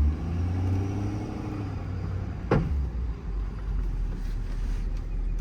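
Ford F-550 service truck driving, its 6.7 Power Stroke V8 diesel running under a steady road rumble, with one sharp pop about two and a half seconds in. The pop is the body-mounted crane knocking on its pedestal because it is sitting about half an inch up and not fully stowed.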